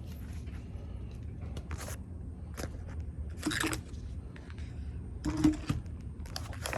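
Handling noise from a wrist wrench trainer as it is changed over to the other hand: light clinks, scrapes and rustles of the handle and strap, loudest about two thirds of the way in, over a low steady hum.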